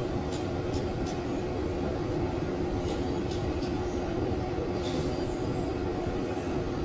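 Haircutting scissors snipping hair: several short, crisp clicks in small groups, over a steady low mechanical hum with a constant droning tone.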